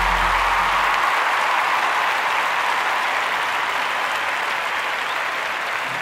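Applause, steady and slowly fading, while the tail of an electronic music track with a bass beat fades out in the first second.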